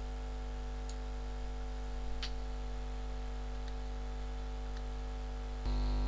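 Steady electrical hum of the recording setup, with a few faint sharp clicks from a computer being worked, about one every second or so. The hum steps up louder near the end.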